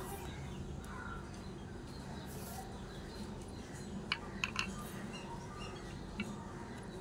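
Outdoor ambience with birds calling faintly. Three sharp clicks come about four seconds in and another near the end, from small utensils being handled or the twig fire crackling.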